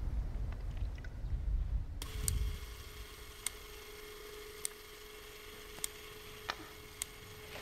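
Low rumble of a passing electric train that cuts off abruptly about two seconds in. A steady hum follows, with a sharp tick about every 1.2 seconds.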